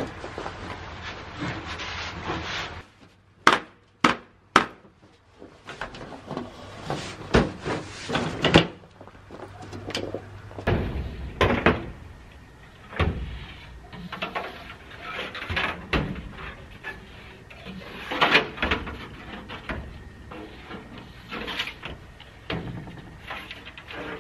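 Footsteps crunching in snow, then irregular knocks, scrapes and clatters of sheet-metal chimney pipe being handled and fitted from a ladder. Three sharp knocks come close together about four seconds in.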